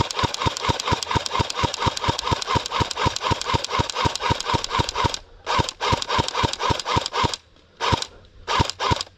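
Airsoft gun firing on full auto, a rapid, even rattle of shots with a motor-driven whir on each cycle. It runs as one long burst for about five seconds, then in three or four shorter bursts with gaps between.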